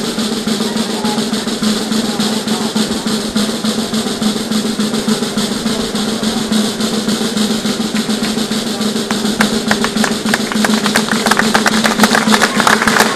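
A snare drum playing a continuous roll, with sharper strokes growing louder over the last few seconds.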